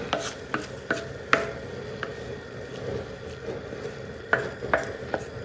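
Wooden spatula stirring and scraping ground-beef chili and hot dogs across a 1/4-inch carbon-steel plow-disc cooker, with irregular clicks and scrapes: a few near the start, one about a second in, and more near the end. Under it, a steady hiss from the cooking fire.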